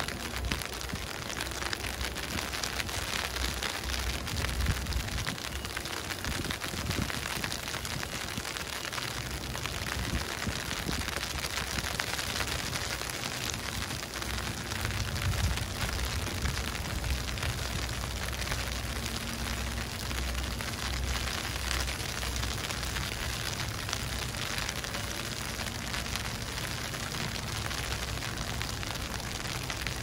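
Steady outdoor hiss of falling snow in a snowstorm, with wind rumbling on the microphone, the rumble swelling and easing.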